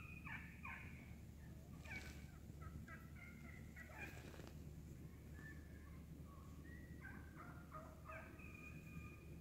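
Wild turkeys in a feeding flock calling faintly back and forth: short clucks, purrs and yelp-like notes from several birds, overlapping. Sharper clucks stand out about two seconds and four seconds in.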